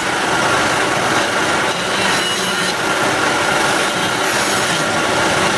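A tool working wood: a steady, dense scraping noise that swells at the top about every two seconds.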